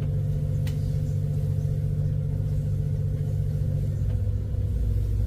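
Canal tour boat's engine running steadily while under way, a low, even hum.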